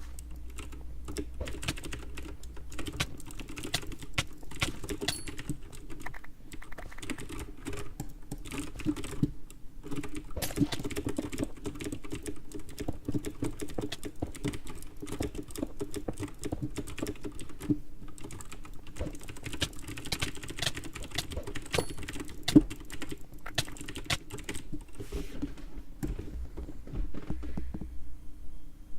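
Computer keyboard typing: a fast, irregular stream of keystrokes, with one sharper, louder click about three quarters of the way through, over a low steady hum.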